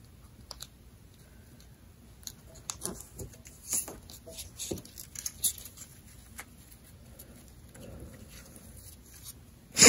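Paper being folded and creased by hand: soft rustles and light crinkling ticks, scattered through the middle. A short, loud rush of noise comes at the very end.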